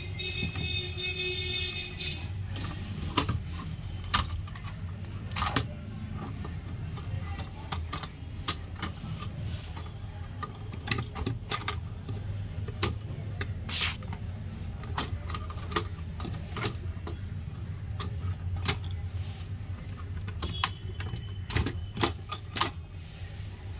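Irregular small clicks, taps and clatter of a screwdriver and the metal and plastic parts of an HP Pavilion dv9000 laptop as it is taken apart and its motherboard handled, over a steady low hum.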